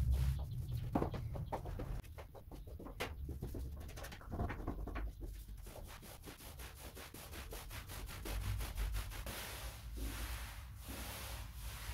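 Paint roller on an extension pole being worked back and forth over a wall, rubbing with each stroke as it lays on primer. The sound turns brighter and hissier near the end.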